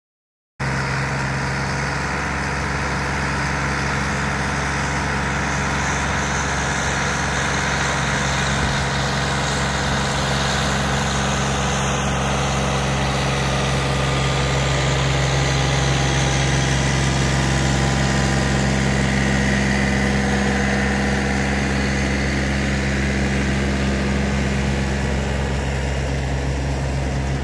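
John Deere 4410 compact tractor's diesel engine running steadily as it drives a PTO-powered Rotadairon reverse-rotation tiller through the soil. The sound starts abruptly about half a second in and holds an even, low drone.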